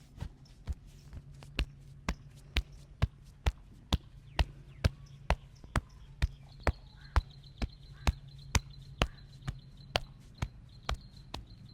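Rapid, regular hand strikes of a fast percussive massage: sharp slaps, about two a second, keeping an even rhythm throughout.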